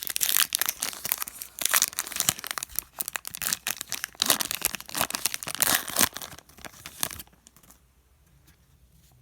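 Wrapper of an Upper Deck hockey card pack being torn open and crinkled, a quick run of crackling tears and rustles that stops about seven seconds in.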